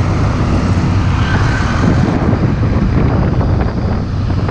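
Road noise heard from a moving motorcycle: the bike's engine drones steadily under wind rush, mixed with the diesel and tyres of an older-model Hino Ranger truck and trailer being overtaken close alongside.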